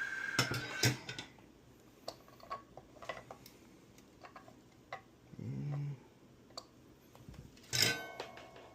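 Scattered clicks and taps of small tools and parts being handled during soldering work, loudest at the start and again near the end, the first with a short metallic ring. A brief low hum sounds about halfway through.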